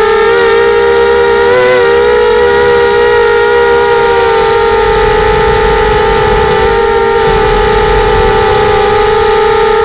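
Pitbull 250 FPV racing quadcopter's brushless motors and propellers whining at a steady pitch, with a brief wobble in pitch about one and a half seconds in.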